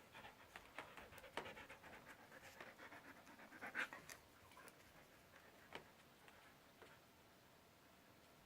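A dog panting faintly, with a few soft clicks scattered through it; the panting fades after about six seconds.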